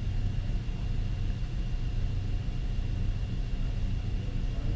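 Steady low hum of idle machine-shop machinery, with a faint steady high whine over it.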